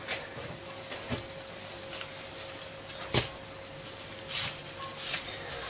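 Quiet kitchen handling sounds as a sheet of nori is laid onto a cling-film-wrapped bamboo sushi mat and pressed down by hand: a few soft knocks, one sharp click about three seconds in, and two short crinkles of the plastic film near the end, over a faint steady hum.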